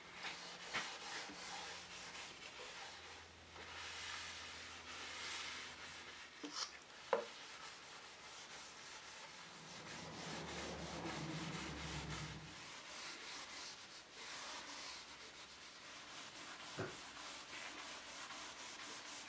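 Faint, continuous rubbing strokes of an alcohol-soaked pad scrubbing the bare mahogany back of a desk, cleaning off the old finish. Two sharp clicks cut through it, one partway through and one near the end.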